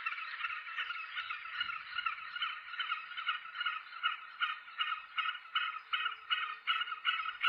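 A steady rhythmic pulsing, about three even pulses a second, that becomes crisper and more clearly separated partway through.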